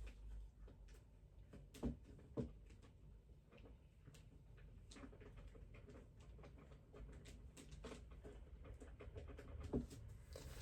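Near silence with a low hum, scattered faint clicks and a few soft knocks.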